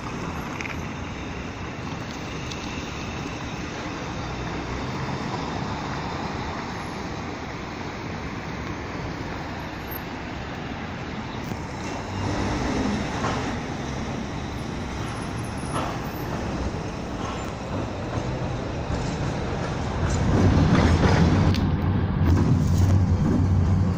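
Steady city street traffic noise. About twenty seconds in it grows louder, with a low, steady rumble as a tram rolls along the rails.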